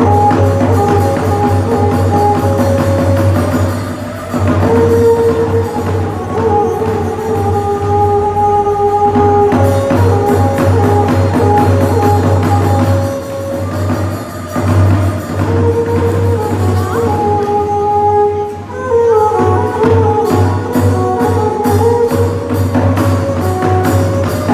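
Khmer traditional ensemble music (nhạc ngũ âm) accompanying a dance drama: a held, wavering melody over steady drum and cymbal strokes. The strokes come faster near the end.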